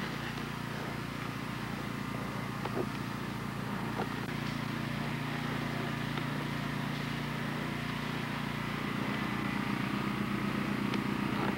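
A steady low mechanical hum, like a motor or engine running without change, with a faint steady high whine above it.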